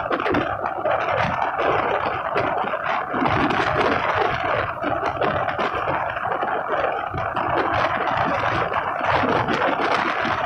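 Express passenger train running at speed, heard from the side of its coach: a steady, unbroken rush of wheel-on-rail noise and moving air.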